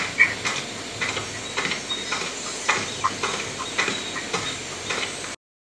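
Sneaker footsteps walking on dirt, a foley sound effect, at a steady pace of about two steps a second; they stop abruptly near the end.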